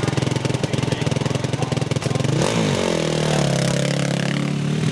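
A 450cc single-cylinder quad bike engine runs at low revs with a rapid, even pulsing. About two and a half seconds in it revs up sharply, then holds a higher note that sags slowly.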